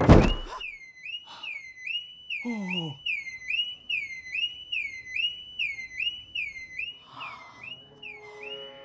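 A heavy thump, then a sports car's alarm siren going off: a falling whoop repeating about twice a second.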